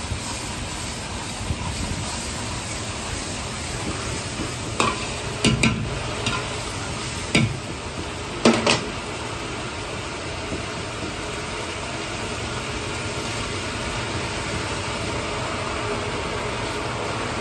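Steel ladle stirring a sauce boiling hard in a wok, over a steady sizzle and hiss. Several sharp metallic clacks of the ladle striking the wok come between about 5 and 9 seconds in.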